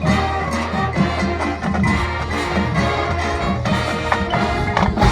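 Marching show band playing: brass and woodwinds holding sustained notes over drums, with sharper drum hits near the end.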